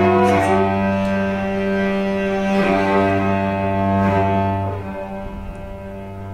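Cello playing slow, sustained bowed notes, changing pitch a few times and growing quieter toward the end.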